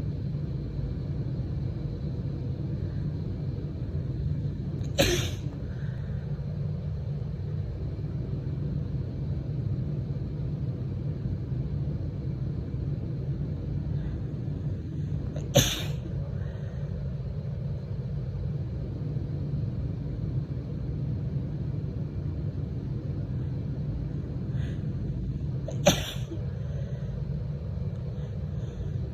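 A woman sneezing three times, each a single short, sharp dry sneeze, roughly ten seconds apart, over a steady low rumble.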